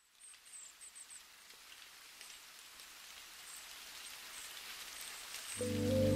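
Steady rain with scattered drop ticks, slowly growing louder. Near the end, soft sustained music chords come in over it.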